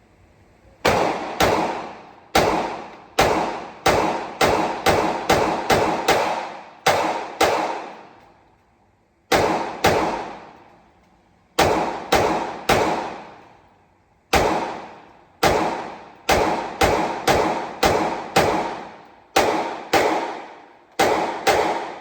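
G-Force Arms Exodus RPX9 9mm Glock-clone pistol firing rapid semi-automatic shots from a 40-round magazine, several dozen in quick strings with short pauses between. Each shot is followed by a ringing echo.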